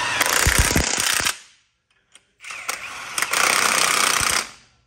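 Cordless impact wrench hammering in the grade 8 bolts that hold the spindle to a Dana 60 steering knuckle, in two bursts of about one and a half and two seconds with a short pause between.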